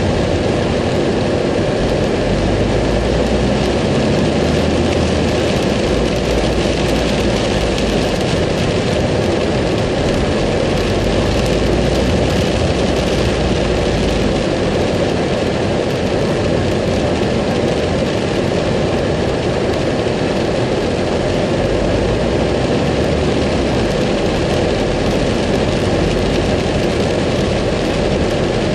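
Rain falling on a car's roof and windshield, mixed with the car's engine and tyre noise on a wet road, heard from inside the cabin. The noise is loud and steady throughout.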